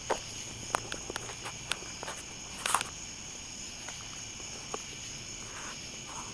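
Crickets or other night insects trilling in a steady chorus of high tones, with scattered light clicks and a brief scrape a little under three seconds in.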